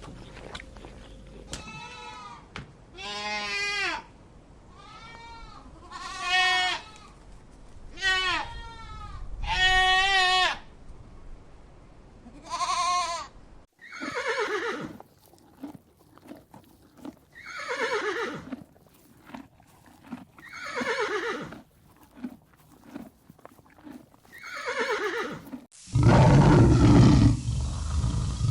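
Goats bleating: about seven short, quavering calls in the first half. After a cut, a different animal gives about five calls that fall in pitch, and near the end a loud, low roar begins.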